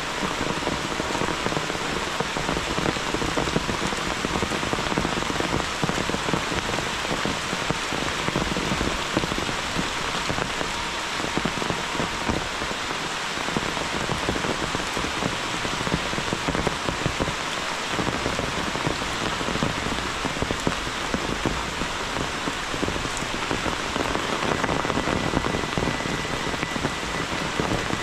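Steady rain pattering on leaves and a wet dirt path, an even, dense hiss of drops.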